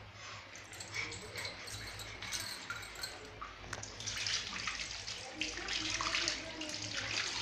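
Water poured from a plastic mug over a baby's body and splashing onto a tiled floor, growing louder and steadier about halfway through.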